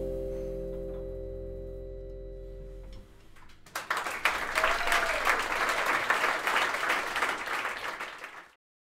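The jazz trio's final chord, led by an archtop guitar, rings out and slowly fades. About four seconds in, the audience starts clapping, and the applause runs on until it cuts off just before the end.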